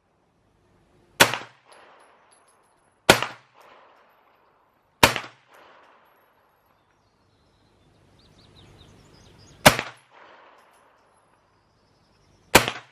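Five single gunshots from a TEC-9-style pistol, fired one at a time with a pause of about two seconds between most of them and a longer gap before the fourth. Each crack is followed by a short echo.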